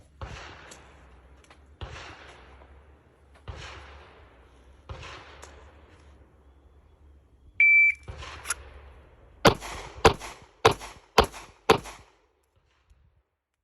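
A shot timer's start beep, then five handgun shots fired at a steady cadence about half a second apart, about 4.1 seconds from beep to last shot. Before the beep, a few softer, muffled bangs.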